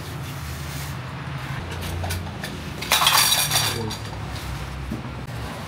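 Dishes clinking in a small kitchen: a short, loud rattle of glass and metal about three seconds in, over a steady low hum.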